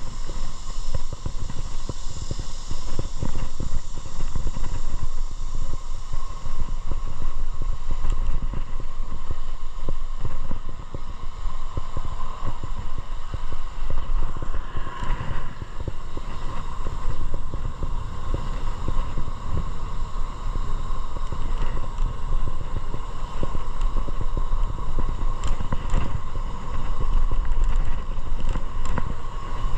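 Motorcycle being ridden: a steady, fluttering low rumble of engine and wind on the microphone, with a faint steady whine over it.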